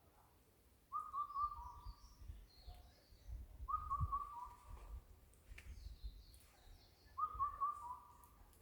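A bird sings a low, wavering whistled phrase three times, about every three seconds, each phrase dropping to a lower note at the end. Fainter high chirps from another bird come in between.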